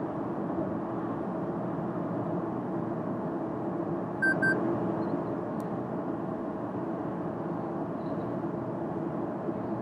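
Inside the cabin of a Toyota Corolla 125h 1.8 hybrid at motorway speed: steady road and tyre noise with a low hum. About four seconds in, two short electronic beeps sound in quick succession.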